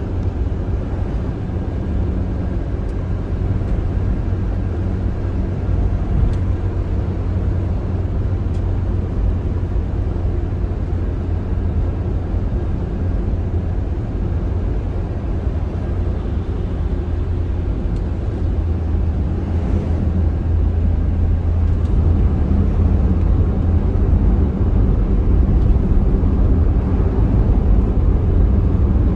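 Steady low rumble of a car's tyres and engine heard from inside the cabin while driving at highway speed, growing a little louder near the end.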